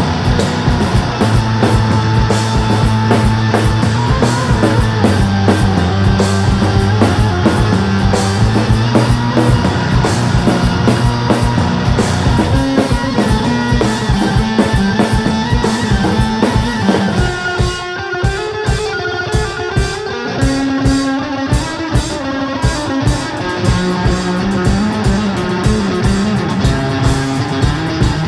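Live rock played on electric guitar and drum kit, with a fast, dense beat over sustained guitar notes. Past the middle the cymbals thin out for a couple of seconds, then the full beat comes back.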